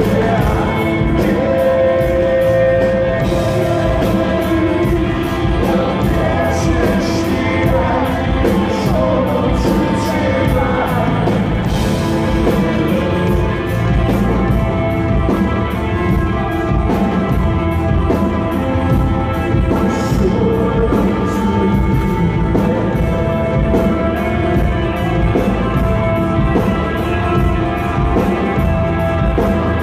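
Live rock band playing at full volume in a hall: electric guitars, drum kit and keyboard, with a lead vocal.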